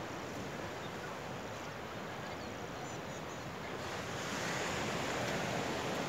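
Steady rushing noise of sea surf and wind, growing a little louder about four seconds in.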